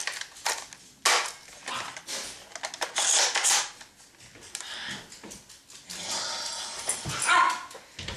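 A dog barking on and off, mixed with irregular handling and rustling noises.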